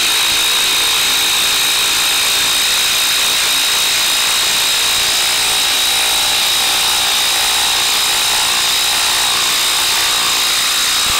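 Ryobi P235A 18-volt impact driver hammering without a break as it drives a 6-inch screw into a log through an impact socket, a steady high whine over the rapid rattle of the impact mechanism.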